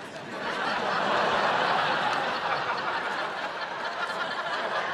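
Studio audience laughing, swelling up within the first half second and carrying on steadily.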